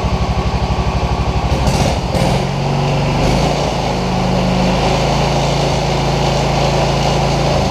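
Tecumseh small engine on an old garden tractor running just after a part-choke start, still warming up. It pulses unevenly at first, then evens out to a steady run about two seconds in.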